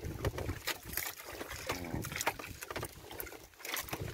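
Water lapping and slapping against the hull of a small outrigger boat, with scattered short knocks and clicks.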